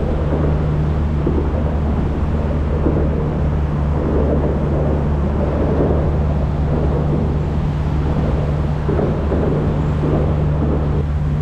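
Boat motor running steadily at low speed, a constant low hum with an even rush of wind and water noise over it.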